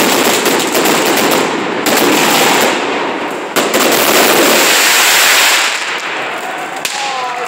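Fireworks and firecrackers going off in a dense, rapid crackle, with a few sharper single bangs among them. The crackle eases off about five seconds in.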